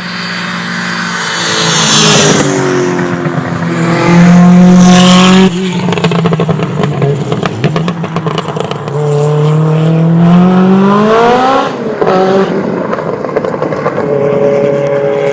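Peugeot T16 Pikes Peak race car's turbocharged engine at full throttle. Its pitch falls, then climbs through the revs and cuts off sharply at the gear changes, with a run of sharp crackles in the middle.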